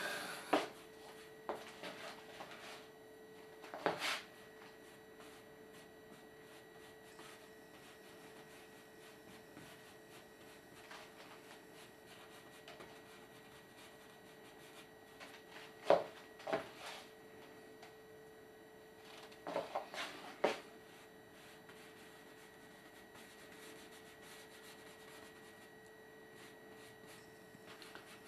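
Quiet room with a faint steady whine and a handful of sharp knocks and taps from handling the paintbrush, palette and canvas while oil painting: a pair of knocks near the middle and a quick cluster about two-thirds through.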